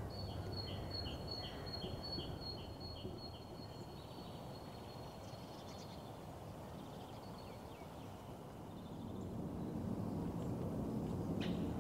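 Outdoor background rumble with a small bird calling for the first few seconds: a quick run of evenly repeated short notes under a thin high tone, about two or three notes a second. The rumble swells near the end, and there is a single sharp click.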